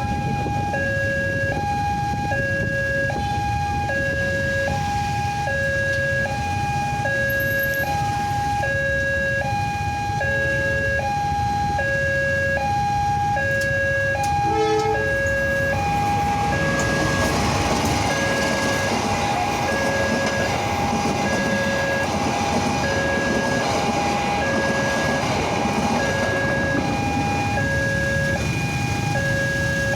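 Electronic railway level-crossing warning siren, newly replaced, sounding a steady two-tone alarm that alternates high and low at an even rhythm. From about halfway through, a broad rushing noise from the passing train rises under it.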